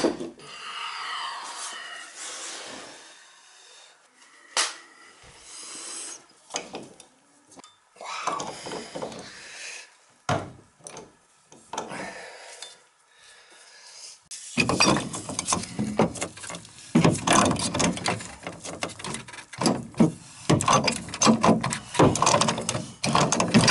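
A wrench scraping, clicking and knocking on metal tub drain piping as a stuck fitting is worked loose. About two-thirds through, the noise turns into a dense, louder stretch of scraping and knocking with brief pauses.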